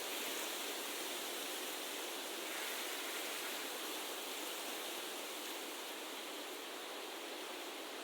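Steady, even outdoor rushing noise with no distinct events, hiss-like and without low rumble.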